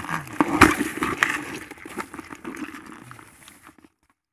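Live rice-field crabs scrabbling in a metal bowl inside a plastic bucket: a few sharp knocks in the first second and a half, then scraping and clicking of shells and legs that fades and stops shortly before the end.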